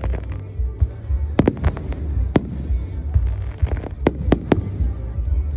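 Fireworks going off: sharp bangs at irregular intervals, two close together, then a single one, then three in quick succession, over a constant low rumble.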